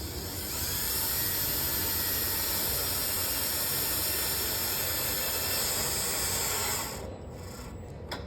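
Power drill running at a steady speed for about six seconds with a high whine. It spins up just after the start and stops about seven seconds in.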